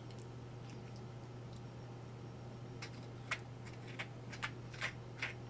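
Eating sounds from chewing a spoonful of avocado: a handful of short, wet clicks and smacks in the second half, over a steady low hum.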